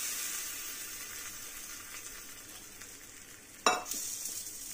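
Hot tempering oil with mustard seeds, dried red chillies and curry leaves sizzling as it is poured onto coconut chutney with curd; the sizzle fades gradually. A short knock comes near the end.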